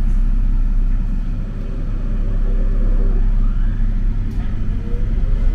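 Rubber-tyred Mitsubishi Crystal Mover light-rail car running, heard aboard as a steady low rumble. A faint motor whine rises in pitch near the end.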